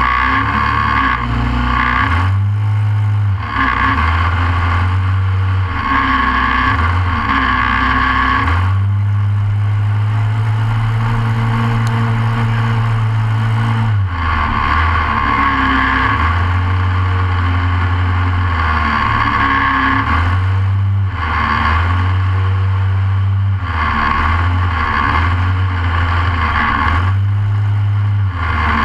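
Short course off-road kart's single-cylinder Briggs & Stratton racing engine running hard, heard from inside the cockpit. Its revs rise and drop every second or two as the throttle is opened and lifted, with a longer steady pull about nine to fourteen seconds in.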